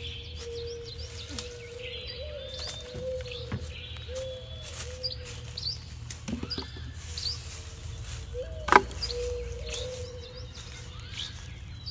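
Wild birds chirping over a low outdoor rumble. About three-quarters of the way through, one sharp wooden knock, the loudest sound, as a log is set down on a woodpile.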